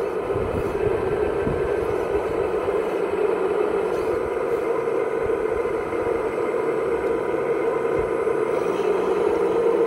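Hydraulic pump of a radio-controlled Cat 6015B model excavator running with a steady whine as the boom and bucket move, with a few low knocks.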